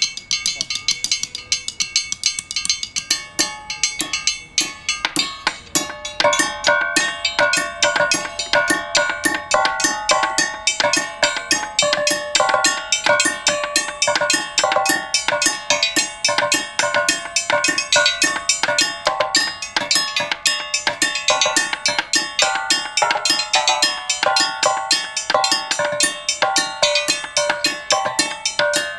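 Rows of rectangular metal tubes played as a percussion instrument, struck fast with mallets and wooden sticks by two players: a dense run of metallic strikes. At first only light high clicks, then the tubes' pitched ringing notes come in about three seconds in.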